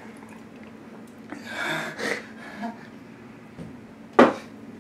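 Someone sipping water from a ceramic mug, a soft slurp and swallow, then a brief sharp sound near the end.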